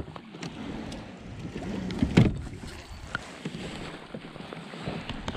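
Kayak on open water with wind and water noise, and small clicks and knocks as fishing gear is handled on the deck; one louder knock about two seconds in.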